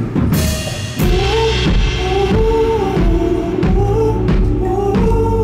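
Live pop-rock band playing at full volume, drums and bass driving, with cymbal crashes near the start and about a second in and a repeating melody line over the top.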